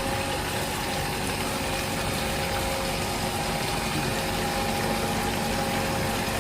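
Small electric water pump running steadily, a constant hum with a few steady tones over a noise of moving water.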